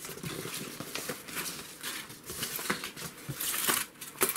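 Rustling and crinkling of crinkle-cut kraft-paper packing filler and polystyrene foam slabs being lifted out of a cardboard box, with many small scrapes and clicks.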